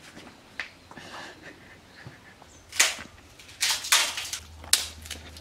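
A young man crying: a few short, sharp, breathy sobs and sniffs, the loudest about three seconds in and more just after four seconds.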